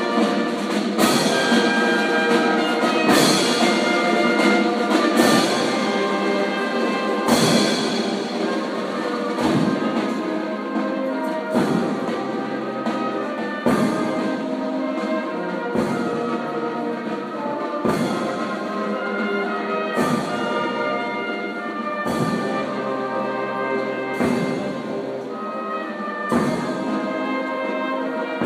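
Marching band of brass and drums playing: sustained brass chords over a drum line, with a strong drum accent about every two seconds.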